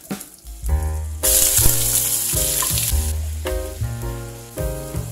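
Shrimp and onion going into hot butter and oil in a wok, sizzling loudly from about a second in and easing off after a couple of seconds. Background music with a steady bass plays throughout.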